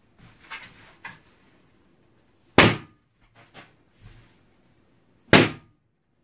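Two large latex balloons bursting with sharp, loud bangs, about two and a half seconds and five seconds in, popped with a pin. Before the first bang there is soft rubbing and rustling as the balloons are handled.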